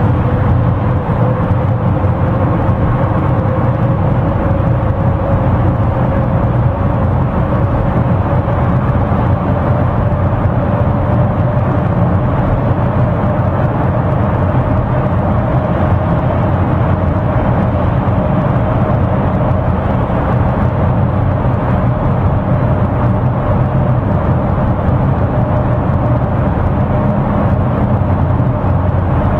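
Steady road and engine noise heard inside a moving car's cabin while driving through a road tunnel, with a faint whine that rises slowly in pitch.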